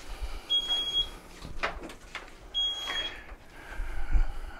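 Metro Patriot mobility scooter's reversing beeper sounding: a short, high, steady beep about every two seconds, three in all, with a couple of knocks and low thuds from the scooter moving.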